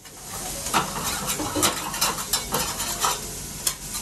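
Food sizzling on a steel teppan griddle, with metal spatulas clicking and scraping against the hot surface about ten times.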